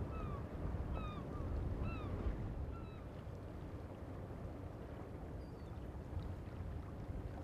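Steady low rumble of wind on the microphone. Over it, during the first three seconds, birds give short calls that fall in pitch, about two a second.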